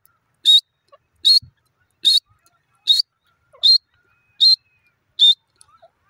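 Grey francolin calling: seven loud, high notes, about one every 0.8 seconds, each ending in a short upward flick in pitch.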